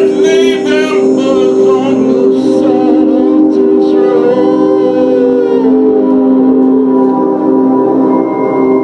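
Drone-based ambient music: several steady held tones, with a wavering, voice-like line over them in the first couple of seconds and a slow downward glide around five seconds in.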